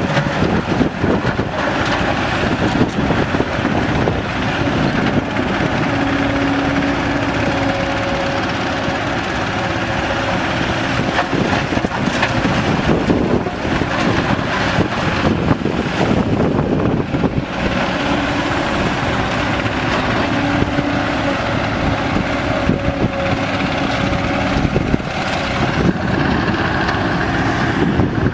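Kobelco SK200 hydraulic excavator working in sand and gravel: its diesel engine runs steadily under load with a droning hydraulic note that comes and goes, over scattered knocks and scraping from the bucket in the gravel.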